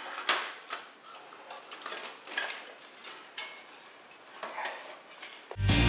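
Scattered light clicks and taps at an uneven pace, from hands working on a TV set's plastic casing and small parts. Loud music with a beat cuts in near the end.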